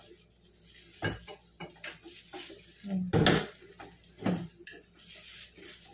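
Kitchen clatter as dishes and utensils are handled: a few separate knocks and clinks, the loudest about three seconds in.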